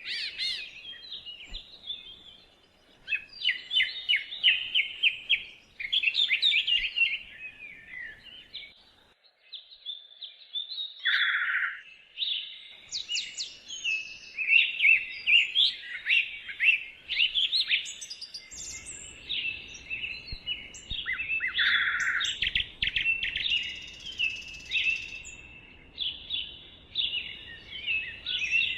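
Several songbirds singing and chirping in woodland, with rapid trills and repeated high notes.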